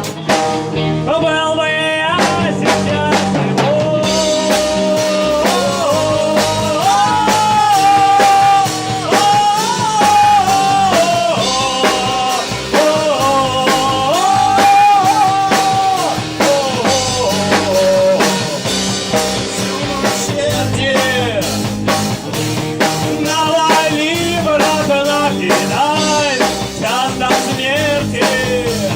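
Amateur rock band rehearsing a song: drums keeping a steady beat under a bending vocal melody.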